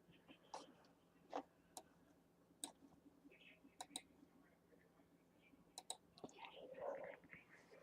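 Near silence broken by about eight faint, scattered clicks from a computer mouse being clicked while navigating a map.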